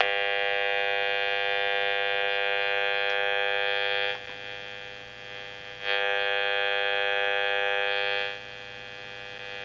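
High-frequency RF meter's audio buzzing steadily as it picks up the microwave signal of a cordless phone base. The buzz falls away sharply about four seconds in, comes back about two seconds later, and falls away again near the end, as aluminum screening is brought over the phone to shield it.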